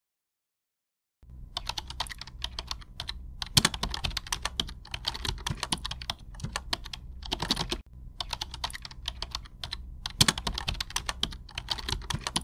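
Computer keyboard typing sound effect: a fast, continuous run of key clicks that starts about a second in, with a brief gap near the eight-second mark.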